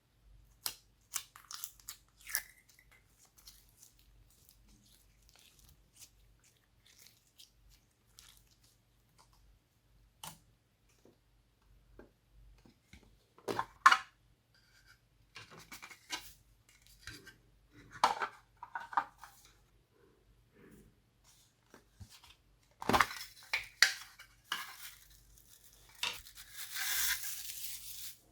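Hands squishing and mixing glossy slime: scattered sticky clicks and pops, a few louder squelching bursts, and a denser crackling stretch near the end.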